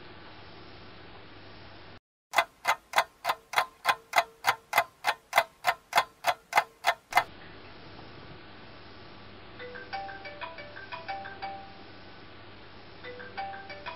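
Clock ticking, about three or four evenly spaced ticks a second for some five seconds. A few seconds later a short chiming alarm tune of quick notes starts and repeats.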